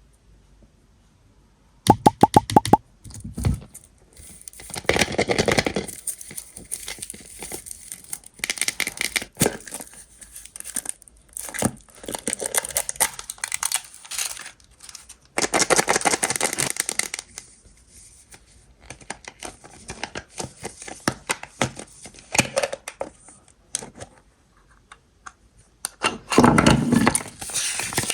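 Foil wrapper of a Kinder Maxi chocolate egg being torn and crinkled by hand, in irregular rustling bursts, with a quick run of sharp clicks about two seconds in.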